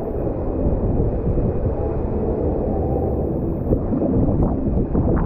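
Water rushing down an open fibreglass body slide under a rider's sliding body, mixed with wind buffeting the microphone: a steady, low rushing noise.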